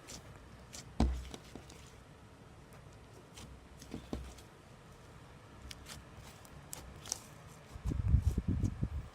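Hands working cloud slime: small, soft clicks and squishes throughout. There is a louder low, thumping handling burst about a second in and another near the end.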